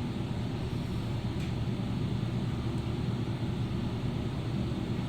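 Steady low background hum with a faint tick about a second and a half in.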